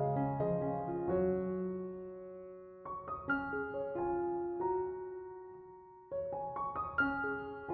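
Background piano music: gentle arpeggiated phrases, each note starting cleanly and fading away, a new phrase beginning about every three seconds.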